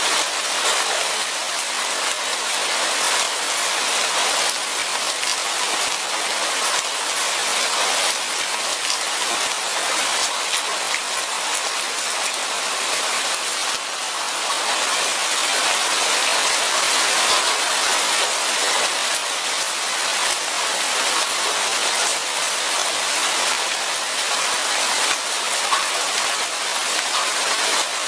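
Steady light rain pattering on forest foliage: an even hiss sprinkled with many small drop ticks.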